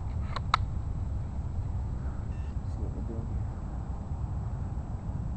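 Wind rumbling on the microphone, with two quick metallic clicks about half a second in, the second louder, from a semi-automatic rifle being handled.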